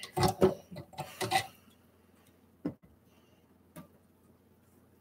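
Hands handling and rubbing a vinyl reborn doll head over a stainless steel kitchen sink: a run of scuffs and light knocks in the first second and a half, then two faint clicks.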